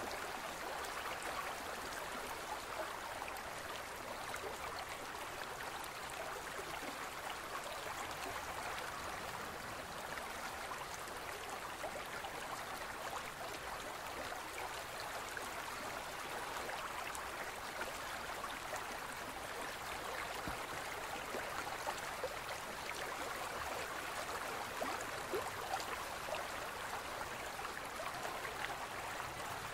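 A gentle stream flowing: a steady babble of running water, flecked with small splashes and trickles.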